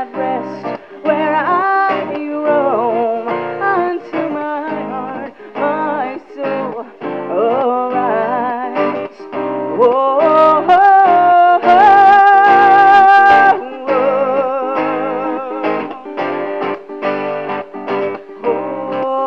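A woman singing live to her own acoustic guitar, the guitar played steadily under a wavering melody. About twelve seconds in she holds one long note with vibrato for a second or two.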